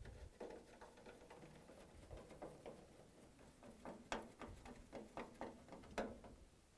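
Faint scattered clicks and light taps of a Phillips screwdriver driving screws into the top of a washer's front panel, with two slightly sharper clicks about four and six seconds in.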